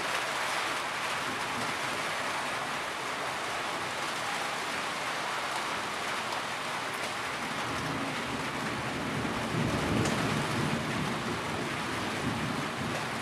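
Heavy rain falling steadily, an even hiss of many drops. A low rumble swells for a couple of seconds about two-thirds of the way through.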